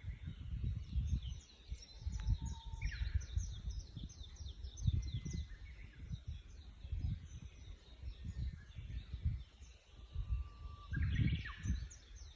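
Several small songbirds chirping: many short, quick chirps that sweep down in pitch, with a few longer held whistled notes. A low, uneven rumble that swells and fades runs beneath them and is louder than the birds, strongest about eleven seconds in.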